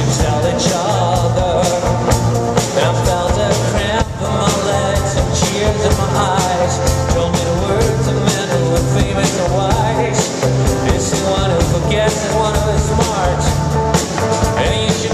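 A live band playing a rock-and-roll song: electric guitar, bass guitar and drum kit, with a steady bass line and drum beat under a bending melodic line.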